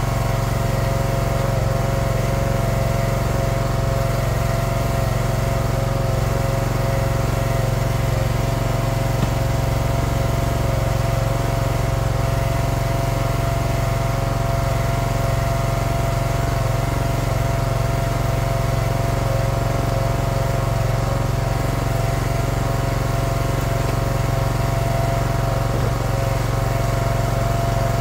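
Split-fire 2265 log splitter's small gas engine running steadily at a constant speed.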